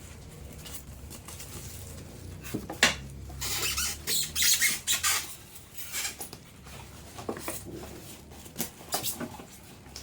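Coffee machine packaging and parts being handled and unpacked: irregular rustling and scraping with several sharp knocks.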